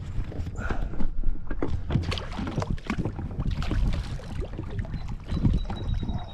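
Water slapping and lapping against a kayak hull in irregular small knocks over a low rumble, while a hooked fish is fought on the rod.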